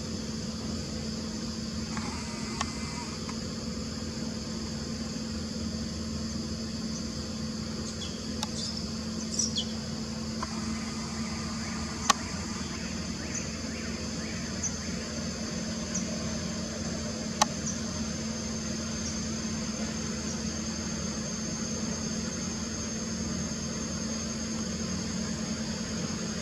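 Outdoor ambience: a steady high-pitched insect drone over a constant low hum. A few short chirps come about a third of the way in, and there are two sharp clicks.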